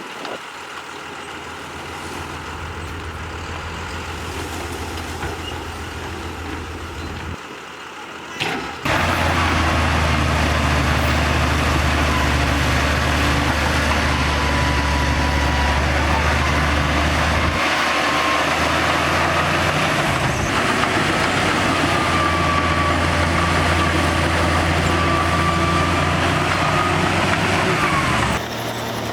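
Heavy diesel earthmoving machinery running steadily. It gets much louder about nine seconds in, just after a brief sharp sound, with a thin high squeal wavering above the engine, and drops back sharply near the end.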